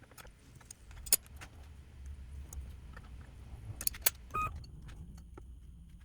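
Sienci Labs Longmill MK2 hobby CNC router at work on a cutout pass in wood: a steady low rumble with scattered sharp clicks and ticks, and a brief pitched whine about four seconds in.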